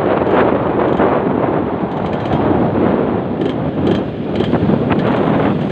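Wind rushing over the microphone of a moving Yamaha RX-King motorcycle, its two-stroke single-cylinder engine running underneath.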